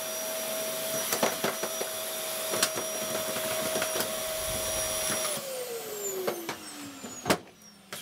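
Contempo G020-18 1800 W cyclonic bagless vacuum's motor running with a steady whine, then switched off about five seconds in, its pitch falling as the motor spins down. Scattered clicks and knocks throughout, with one sharp knock near the end.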